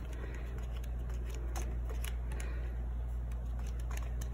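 Paper pages of a sticker book being flipped through by hand, with scattered light paper ticks and rustles. A steady low hum runs underneath.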